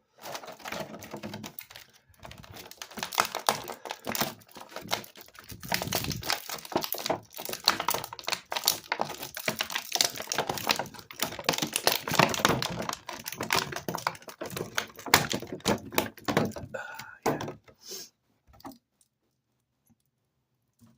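Stiff plastic action-figure packaging being handled: a dense run of clicks, taps and crinkles as the figure and its parts are worked out of the plastic tray. It thins out to a few scattered clicks near the end.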